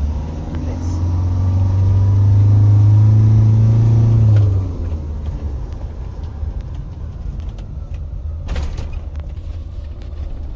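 Motorhome engine pulling under load, a steady hum that rises slightly in pitch, then easing off abruptly about four and a half seconds in, leaving a low rumble of the vehicle rolling; a brief knock about eight and a half seconds in.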